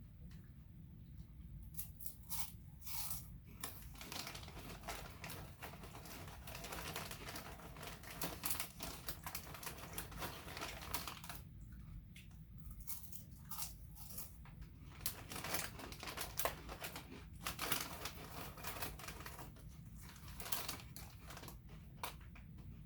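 Crunchy barbecue fries chips being chewed: long stretches of crackly crunching with short pauses between.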